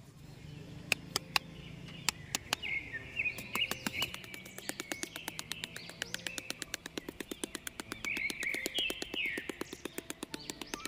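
Birds chirping and twittering, over a run of sharp clicks: a few at first, then quick and even from about four seconds in, about eight a second. The clicks come from a small metal trowel working a sand floor.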